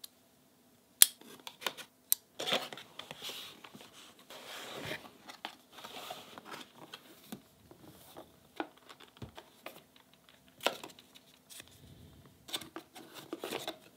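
Paper and cardboard packaging of a Rode Wireless Pro box being handled: a few sharp clicks, then several seconds of tearing and rustling. Further single clicks follow, and a last burst of paper rustling comes near the end.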